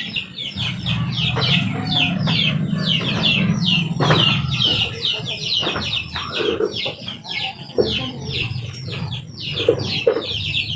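Chicks peeping in a continuous stream of short, falling cheeps, several a second, over a low steady hum.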